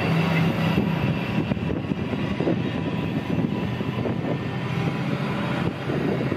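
JR Freight DF200 diesel-electric locomotive passing with a steady low engine drone, which weakens after the first second or two as the locomotive goes by. A long train of tank wagons then keeps rolling past with continuous wheel and rail noise.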